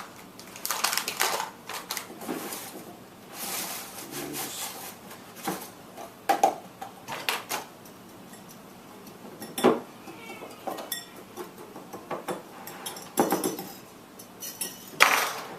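Kitchen bowls and utensils being handled: scattered clinks, knocks and rustles, with a few louder knocks spread through.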